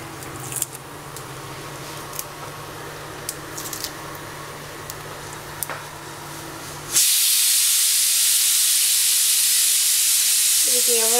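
Mustard seeds, urad dal and fenugreek frying in hot sesame oil, with a few scattered faint pops and crackles over a low hum. About seven seconds in, a much louder steady hiss starts abruptly and runs on.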